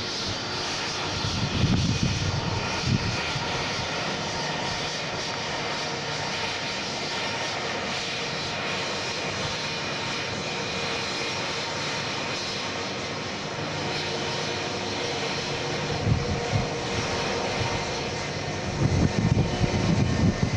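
Jet airliner engines running at an airport, a steady hiss and whine with several high tones held throughout. An uneven low rumble swells about two seconds in and again near the end.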